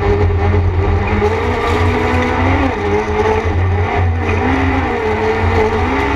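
Peugeot 206 race car's engine heard from inside the stripped cabin, running hard under load, its revs rising and dipping several times.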